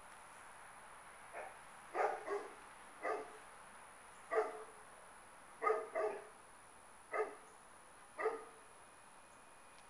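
Dog barking repeatedly: about nine short barks from a second and a half in, spaced unevenly roughly a second apart.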